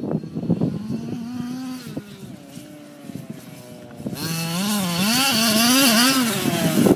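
Losi 5ive T 1/5-scale RC truck's two-stroke petrol engine running. Its note drops back about two seconds in, then from about four seconds in it gets louder, revving up and down repeatedly as the throttle is worked.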